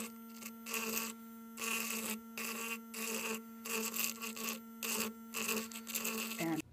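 Battery-powered electric calculus remover buzzing steadily, its vibrating steel tip scraping loose sandy matrix off a fossil scallop shell in irregular gritty bursts. The buzz cuts off near the end.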